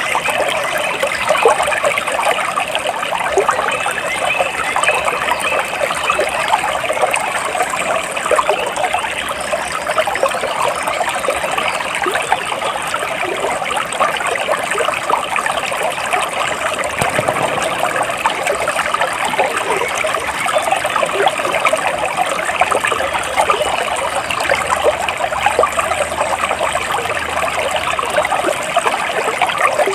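Flowing water trickling steadily, with a dense, unbroken babble.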